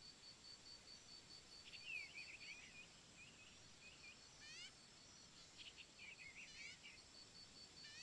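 Faint outdoor ambience with distant small-bird twittering: two short clusters of high chirps, about two seconds in and again about six seconds in, with a few quick high sweeps between them and a faint rapid pulsing high note at the start and the end.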